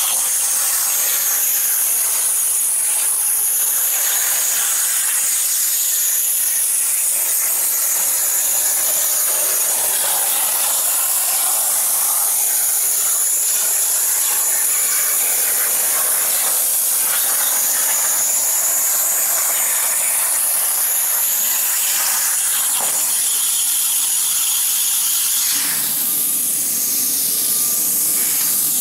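CNC plasma cutter torch cutting sheet metal: a loud, steady hiss from the plasma arc. Near the end it changes to a softer hiss with a faint steady tone.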